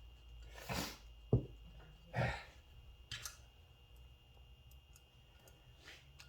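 Clicks and short scraping noises of small metal valvetrain parts being handled on an engine cylinder head, with one sharp knock about a second and a half in.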